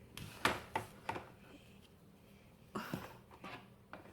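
A few light clicks and knocks of plastic toy pieces being handled and set down on a plastic farm playset: three in the first second or so, then a small cluster about three seconds in.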